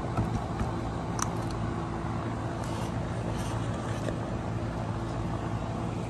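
A steady low mechanical hum, as of a motor running continuously, with a few faint light clicks over it.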